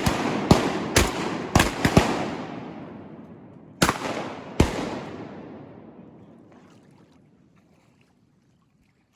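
A volley of shotgun blasts from several hunters: about six shots in the first two seconds, then two more near four and four and a half seconds, each echoing long and dying away through the flooded timber.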